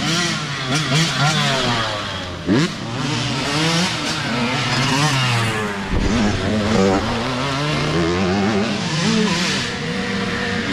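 Dirt bike engines revving, their pitch rising and falling as the throttle opens and closes, with one sharp rise about two and a half seconds in.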